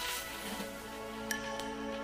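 Soft background music with held, sustained notes.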